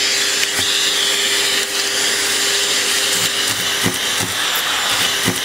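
Vacuum cleaner running with steady suction through its hose nozzle held at a mouth, a rushing whine, with a few dull knocks in the second half.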